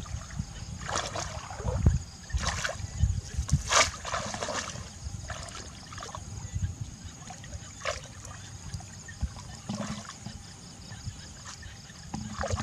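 Water splashing and trickling in irregular splashes a second or two apart, as from hands working through shallow water while fishing by hand.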